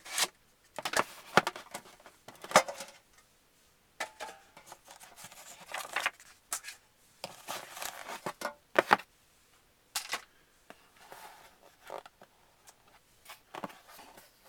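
Hands opening a sealed trading-card box and its wrapping: irregular scraping, rustling and sharp clicks of cardboard and packaging, with short pauses between.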